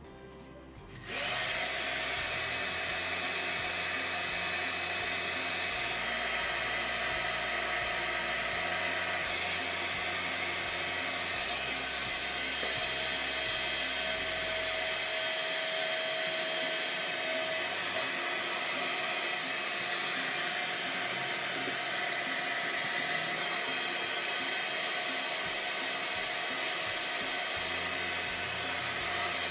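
Small electric motor running steadily, a rushing hiss with a faint whine, switched on about a second in.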